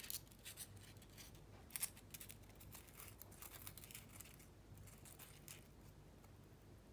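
Faint, crackly rustling of a small piece of white paper crinkling between fingers as it is handled and pressed into place, in a run of short rustles that stops a little before the end.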